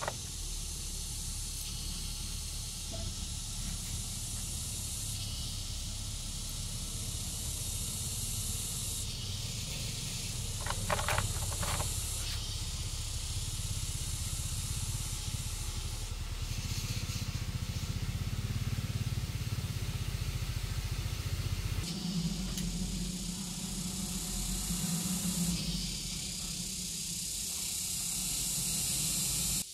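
Steady high hiss over a low rumble of outdoor background noise, with a few light clicks about eleven seconds in, from hand tools working a small metal engine part.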